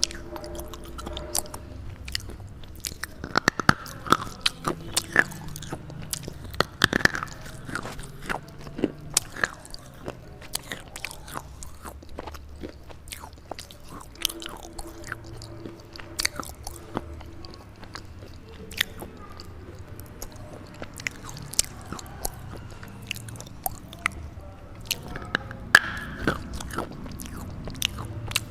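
Dry, brittle crunching of a red slate bar being bitten and chewed: irregular sharp cracks, coming thick and fast in the first third and again near the end, with quieter chewing between.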